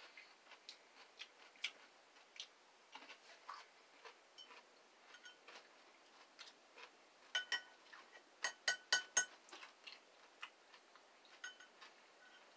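A metal fork clinking against a glass pickle jar as it spears pickles: faint scattered clicks, then a quick run of louder, ringing taps about seven to nine seconds in.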